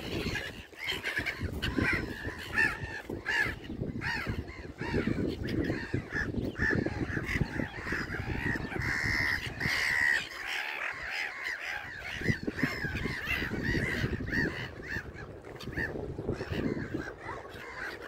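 A flock of black-headed gulls calling constantly, many short harsh calls overlapping, one louder drawn-out call about halfway through, over a low rumbling noise.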